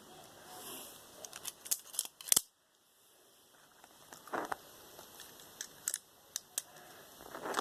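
Plastic Lego pieces clicking and tapping as they are handled: a quick cluster of sharp clicks in the first few seconds, then a few scattered ones later.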